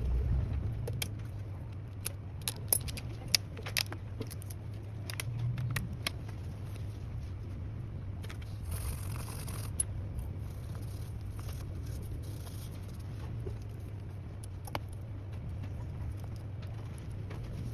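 A scatter of small, sharp metallic clicks and taps, most of them between about one and four seconds in, as repair tools and phone parts are handled during an iPhone battery replacement. Under them runs a steady low hum.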